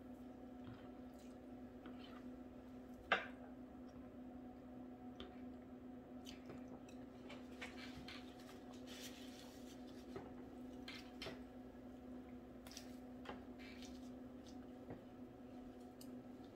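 A person quietly eating tomato soup and a grilled cheese sandwich: soft wet squishing and chewing, scattered small clicks, and one sharper click about three seconds in, over a steady low hum.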